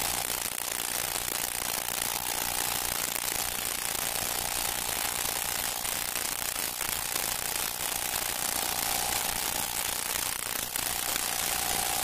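Steady hiss and crackle of an old film soundtrack, with a faint steady whistle-like tone running underneath and scattered light clicks.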